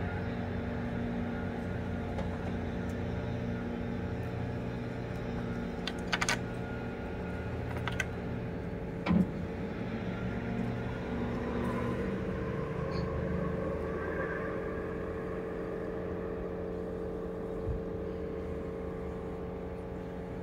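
Steady low rumble and hum of outdoor road traffic, with a few brief clicks and knocks between about a third and halfway through.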